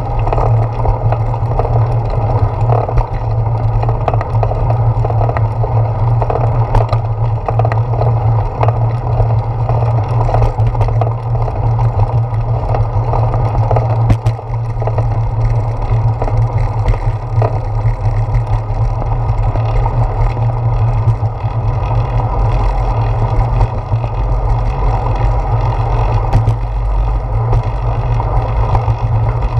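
Bicycle rolling over a concrete path, heard through a handlebar-mounted GoPro: a steady rumble of tyre and handlebar vibration with occasional short knocks.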